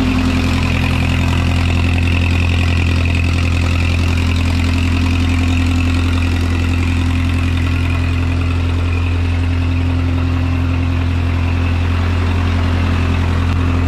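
1957 Oliver Super 55's four-cylinder gasoline engine idling steadily, running again after its restoration.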